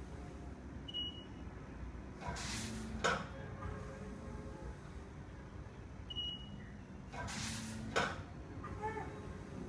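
Small desktop semi-automatic powder and granule filling machine cycling twice, about five seconds apart: a short high beep, then the dispensing run, a hiss over a low hum lasting under a second, ending in a sharp click.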